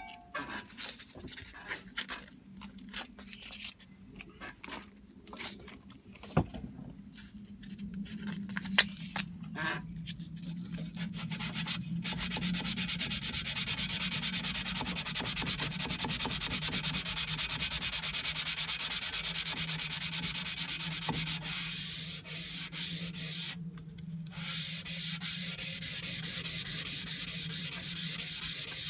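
Hand sanding of a tanto knife blade with abrasive paper, sped up in time lapse. Scattered knocks and handling clicks come first, then from about twelve seconds in a steady run of very rapid scratchy rubbing strokes.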